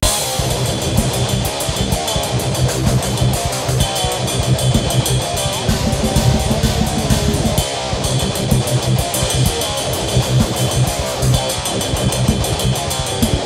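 Rock music with guitar and a drum kit, starting suddenly.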